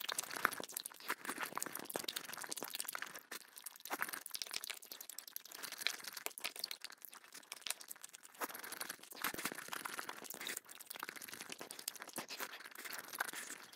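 Close-miked eating sounds: wet chewing, with tearing and crinkling as spicy braised pig's feet (jokbal) are pulled apart and eaten. Short clicks and crackles run on with little pause.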